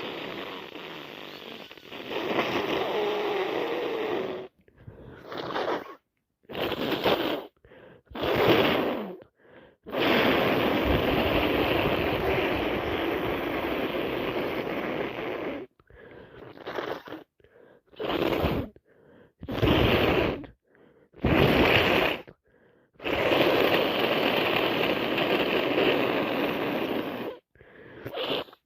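A person with a heavy, runny head cold blowing and sniffing through a congested nose. There are three long, steady blows of several seconds each: near the start, in the middle and near the end. Short, sharp sniffs come between them.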